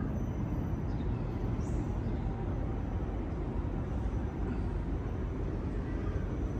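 Steady low rumble of outdoor background noise, with a faint high chirp about two seconds in.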